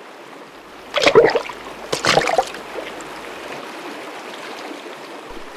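Running stream water, a steady rushing, with two louder sudden sounds about one and two seconds in.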